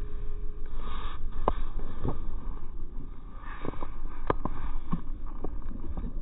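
Wind rumbling on the microphone, with scattered sharp clicks and knocks throughout.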